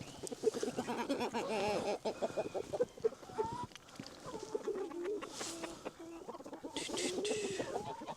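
Backyard poultry flock calling with many short, low calls overlapping one another as it is fed cracked corn.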